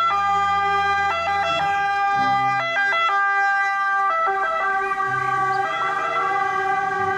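Loud, steady electronic siren-like tones that jump between a few pitches, held for a half-second to a second or more at each.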